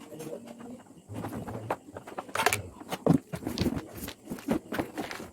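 Irregular handling noises: clicks, knocks and rustling, busier from about a second in, as of parts and packaging being unpacked and handled.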